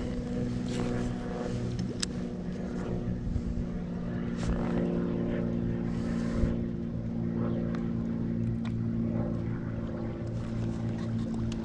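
A boat motor running steadily at an unchanging pitch, with a few light clicks.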